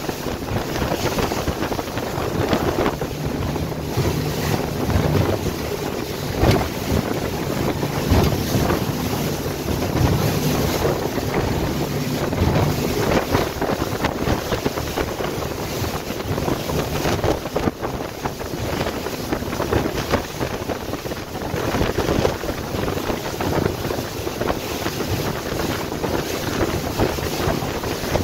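Wind buffeting the microphone on a boat under way, with water washing along the hull and the steady drone of its twin Suzuki 350 V6 four-stroke outboards underneath.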